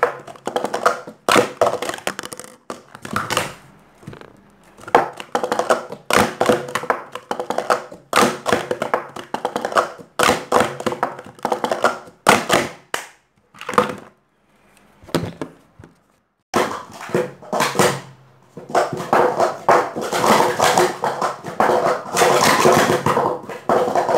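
Sport-stacking cups being stacked up and down at speed: a dense clatter of hard plastic cups knocking and sliding together on a stacking mat, in fast runs with a pause of about two seconds past the middle.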